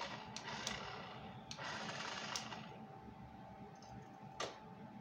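Small motor and plastic gears of a Sharper Image 1/16-scale RC car whirring in two short runs of about a second each, with light clicks, then a single sharp click near the end.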